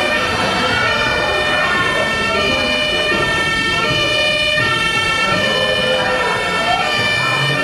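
Two-tone emergency siren of the German fire-brigade kind, switching back and forth between two pitches without a break.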